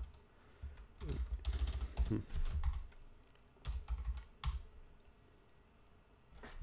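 Typing on a computer keyboard: a quick run of key clicks in the first half, then a few single keystrokes with pauses between.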